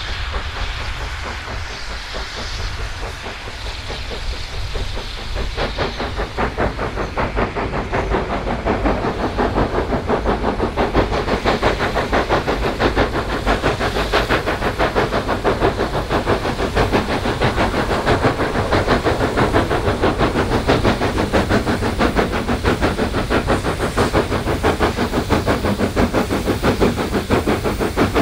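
Steam locomotive working: a hiss of steam at first, then about five seconds in a rapid, regular beat of exhaust chuffs that grows louder over several seconds and then holds steady.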